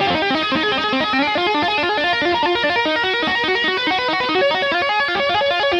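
Fender Stratocaster electric guitar played with two-handed tapping: a fast, even, repeating arpeggio of notes, the tapped pattern cycling over and over with no pauses.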